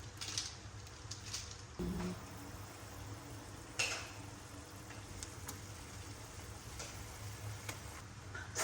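A few scattered knocks and clicks, like utensils or dishes being handled, over a steady low hum. The sharpest click comes near the middle, and a duller knock comes about two seconds in.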